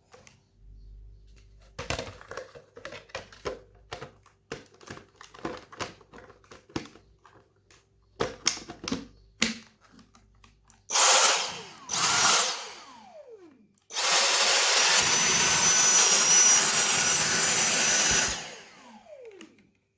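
Plastic parts of a Dyson V6 cordless stick vacuum clicking and knocking as a part is fitted, then the vacuum's motor switched on in two short bursts and once for about four seconds, each time with a high whine that falls away as the motor spins down.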